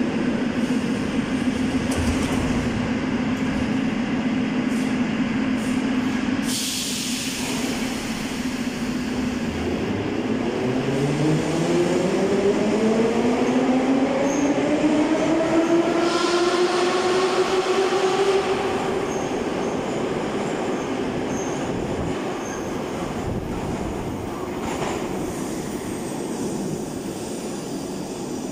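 81-717A metro train pulling out of a station. A steady hum gives way, about six seconds in, to a burst of air hiss. Then the traction motors' whine rises in pitch from about ten seconds in as the train speeds up, and it fades as the train leaves.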